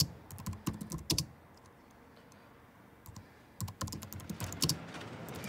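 Light, irregular clicks in two short bursts, one at the start and one near the end, with a quiet gap between.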